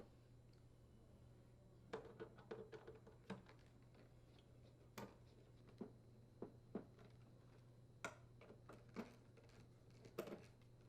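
Faint, scattered small clicks and taps of a Phillips screwdriver working screws out of a dryer door's metal panels, about a dozen in all, over a low steady hum.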